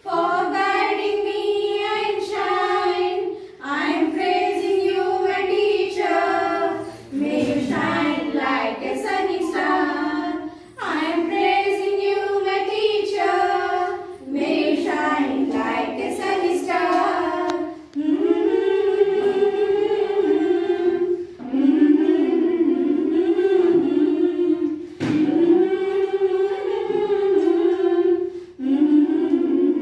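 A group of women singing a song together in high voices, in sung phrases of two to four seconds with short breaks for breath between them.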